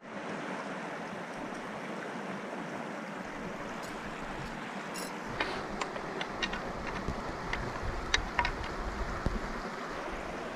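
Steady rush of flowing water. From about five seconds in, a few sharp clicks and taps sound over it for several seconds.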